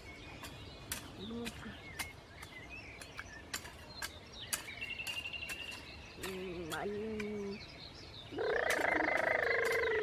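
Birds chirping, with a quick trill about halfway, over scattered sharp clicks typical of a garden hoe chopping into soil. Near the end a loud, drawn-out pitched sound sets in and holds steady.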